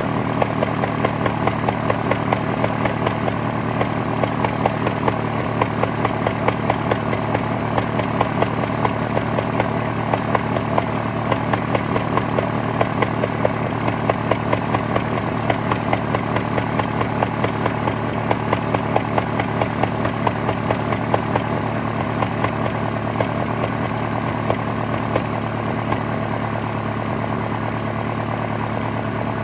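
2001 Honda Prelude's four-cylinder engine idling after a morning start, a steady hum with sharp regular ticks about three times a second that thin out and nearly stop near the end. The engine is logging a cylinder 2 misfire and random misfires on all cylinders, which the owner thinks may be worn piston rings.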